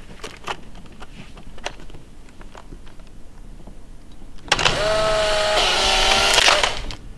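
Polaroid-style instant camera taking a picture, then its motor whirring with a steady whine for about two seconds as it ejects the print. It starts suddenly about four and a half seconds in and cuts off sharply.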